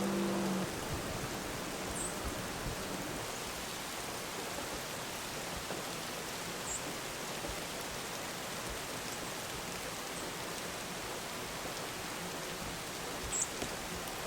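Steady, even hiss of falling precipitation, snow turning to sleet or light rain. A steady low hum stops just after the start, and a few faint high chirps come through.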